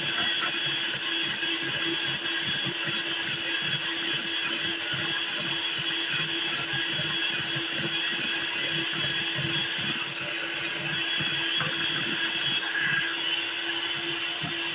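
Electric hand mixer running at a steady speed, with an even motor whine, its beaters whisking eggs and powdered sugar in a glass bowl as the sugar is creamed in.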